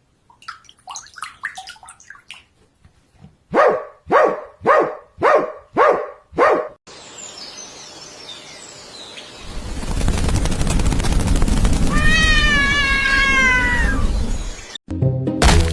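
A series of animal calls: six short calls in a row about half a second apart, then a noisy stretch with a heavy rumble and one long drawn-out call that falls at the end.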